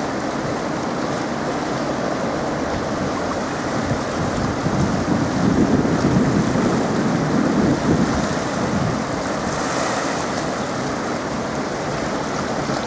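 Water rushing through the open gate of a hydro dam: a steady, heavy noise of falling and churning river water, swelling lower and louder for a few seconds midway.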